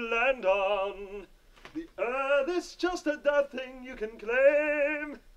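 A man singing a cappella, holding long notes with a wide vibrato, in two phrases with a short pause about a second in.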